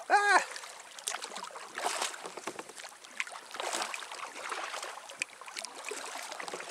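Kayak paddle strokes: a double-bladed paddle dipping and pulling through lake water, with irregular splashes and drips. A short vocal exclamation comes right at the start.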